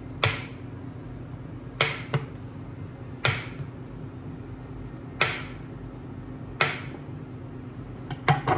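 Kitchen knife slicing pats from a stick of freezer-chilled butter, the blade knocking down onto a wooden cutting board about every one and a half seconds, with two quick knocks close together near the end. A steady low hum runs underneath.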